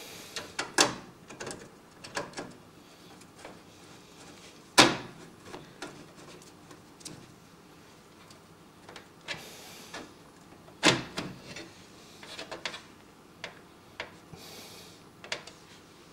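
Scattered clicks and taps of a screwdriver and screws against a PC case while a motherboard is being screwed in, with two sharper knocks about five and eleven seconds in.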